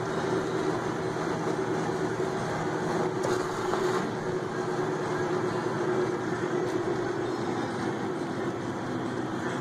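Car driving at a steady speed, heard from inside the cabin: a constant engine hum and road noise with no change in pace.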